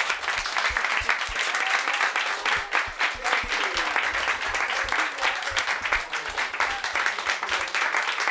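A small group of people clapping together in steady, sustained applause.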